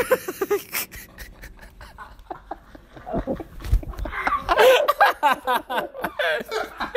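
People laughing and snickering, quiet at first and louder in the second half.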